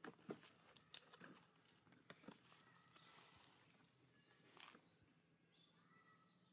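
Faint outdoor quiet with a few soft taps early on, then a bird's quick run of high, rising chirps, about three a second, in the middle.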